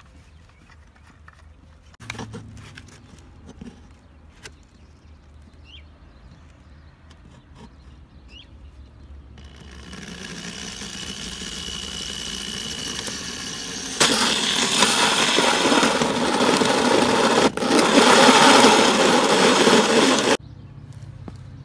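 Scattered light clicks and knocks, then a power tool running from about ten seconds in, building steadily, before it turns loud at about fourteen seconds for some six seconds and cuts off suddenly.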